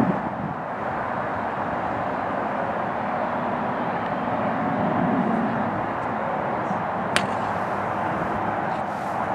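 A single sharp click of a driver striking a golf ball off a tee, about seven seconds in, over a steady rumbling background noise.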